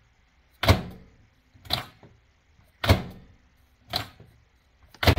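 Microwave oven door with a repaired latch being opened and slammed shut over and over. A heavy thud alternates with a lighter, sharper knock, about one a second, three heavy ones in all, as the latch catches and lets go.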